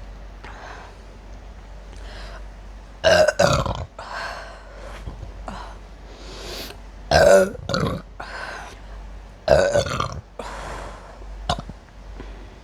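A woman burping loudly after drinking soda, three big burps a few seconds apart.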